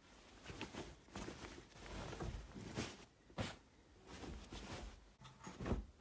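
Bedding rustling as a duvet and sheets are handled, with a few louder rustles or dull bumps about three seconds in and near the end.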